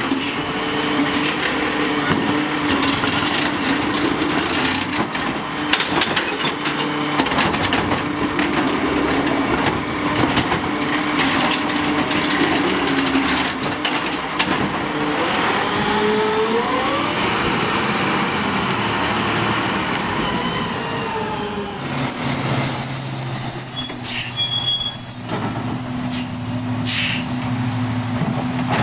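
Garbage truck's diesel engine running, with clanks and knocks, and a pitch that climbs through the middle as the engine revs up.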